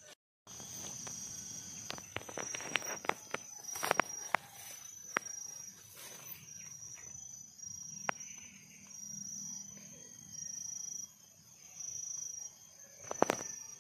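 A forest insect's high call in short, evenly spaced pulses, over footsteps crackling through leaf litter and twigs, with sharp snaps clustered a couple of seconds in and again near the end.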